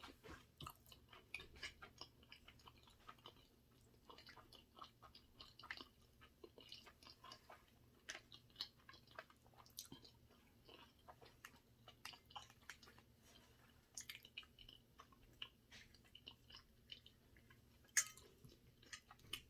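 Faint, close-miked chewing of sushi: soft wet mouth clicks and smacks scattered throughout, with one louder click near the end.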